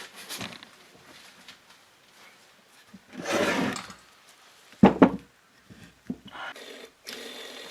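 Workshop handling of scooter engine parts: a rustling rub, then two sharp knocks about five seconds in, and a steady hum that starts near the end.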